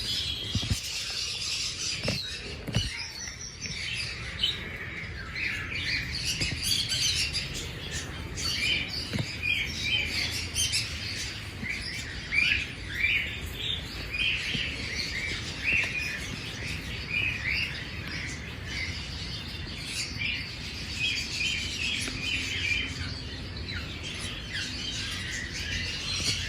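A flock of small aviary birds chirping and twittering, many short calls overlapping without a break.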